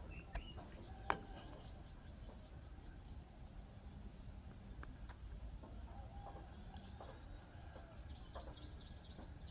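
Faint outdoor ambience: a steady high insect drone with scattered bird chirps, and a quick run of chirps near the end. A sharp click about a second in.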